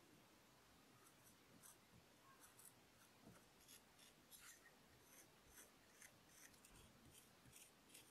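Pointed wooden modelling tool scraping and pressing along the rim of a soft clay slab plate: faint, short scratching strokes, about one or two a second.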